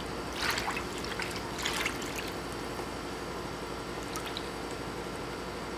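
Water splashing and sloshing in a hydro-dipping tank as the freshly dipped dirt bike side cover is shaken about in it: two short splashes in the first two seconds, then a steady low hum with faint drips.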